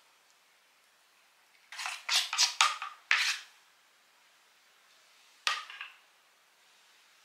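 A spoon scraping and knocking against a plate as it stirs flour and egg into a thick batter: a quick run of strokes lasting under two seconds, then a single sharper knock near the end.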